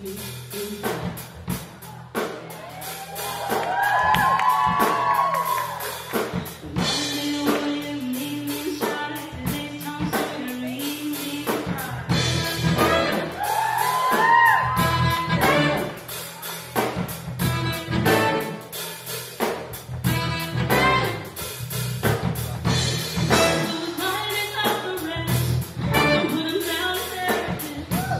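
Live band music: drum kit, electric guitars and bass with saxophones, and a woman singing the melody.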